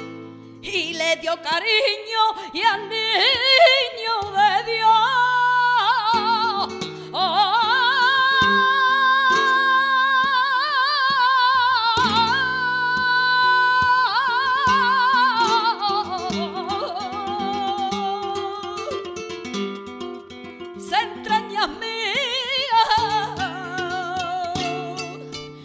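A woman singing a flamenco villancico, a long ornamented line with wavering vibrato and a long held note in the middle, over a flamenco guitar's plucked accompaniment.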